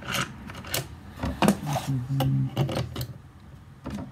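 Handling noise from the plastic and metal parts of a Stihl pole pruner head being worked on a wooden workbench: a run of sharp clicks and knocks with some scraping and rubbing, and a low steady droning tone for about a second in the middle.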